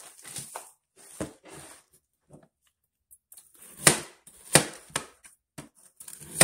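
Kitchen knife chopping through peeled pineapple and knocking on a plastic cutting board: a string of separate chops, with a short pause in the middle and louder, quicker strokes after it.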